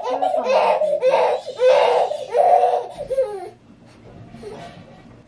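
Infant crying in a run of short, loud wails that fade to quiet whimpers about three and a half seconds in: a fussy baby fighting her nap.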